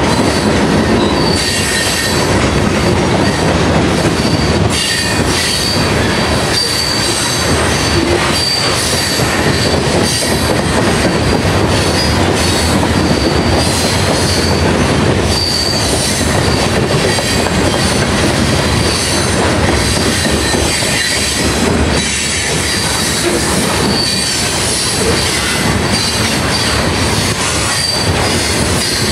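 Freight cars rolling past close by: a steady loud rumble and rattle of steel wheels on rail, with a thin high wheel squeal that comes and goes.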